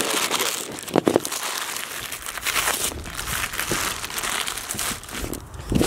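Plastic wrapping being bunched up and pulled off a packaged part, a continuous crinkling with irregular sharper crackles, the loudest about a second in.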